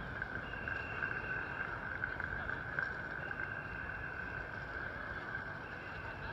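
Busy city street ambience at a pedestrian crossing in the rain: a steady wash of traffic and crowd noise, with a thin high tone sounding three times for a second or two each.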